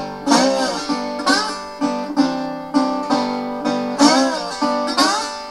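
Metal-bodied resonator guitar played slide-style in a blues intro: plucked notes about twice a second, with sliding swoops up and down in pitch.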